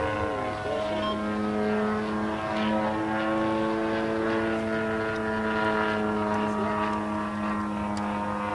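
Radio-controlled model aircraft's engine and propeller droning steadily in flight.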